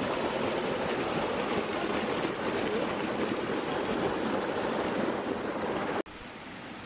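Stream water flowing steadily. It cuts off abruptly about six seconds in, and a quieter rush of water follows.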